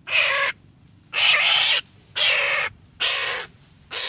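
A bird calling: five loud, rasping calls, each about half a second long and about a second apart.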